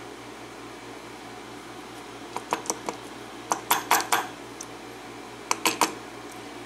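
Small metal lock parts and tools clinking and tapping against each other in three short clusters of quick clicks, the middle cluster the loudest, over a steady low hum.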